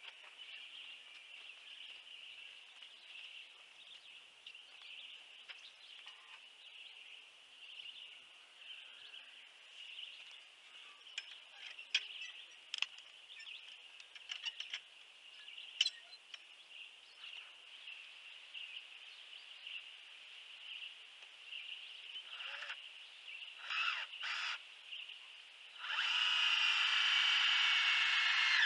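Power drill running as a steel shelf bracket is fastened: a few short trigger pulls, then one steady run of about three seconds near the end whose pitch sags slightly under load. Birds call over a steady high outdoor background.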